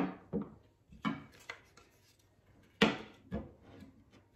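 Wooden scabbard and blade being handled on a wooden tabletop: several wooden knocks and rubs, the loudest about three seconds in.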